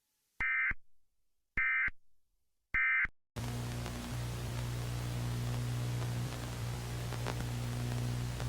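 Three short bursts of EAS SAME data tones, the warbling end-of-message code that closes an emergency alert, about a second apart. From about three and a half seconds in, a steady hiss of static with a low hum takes over.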